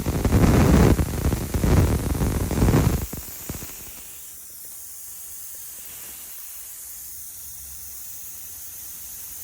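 Nitrogen pressure-test charge being vented from an air conditioner's refrigerant lines. A loud rush of gas for about the first three seconds drops suddenly to a steady, fainter hiss.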